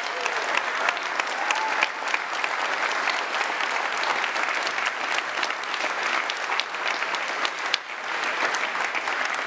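Audience applauding, with dense, steady clapping throughout.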